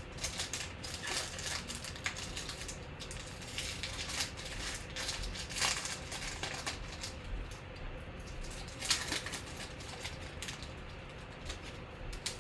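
Foil wrapper of a Panini Prizm football card pack being torn open and crinkled by hand, in irregular bursts of rustling.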